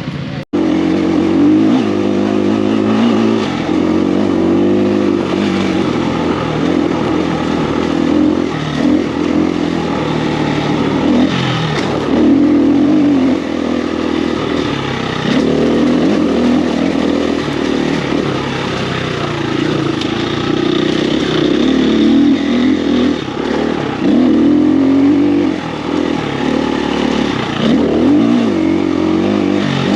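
Off-road motorcycle engine running under load, its revs rising and falling repeatedly as the throttle is worked.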